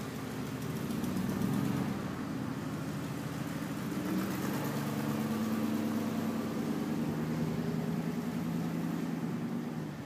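A honey bee swarm buzzing in flight around the camera: a steady hum made of several close pitches that drift slightly.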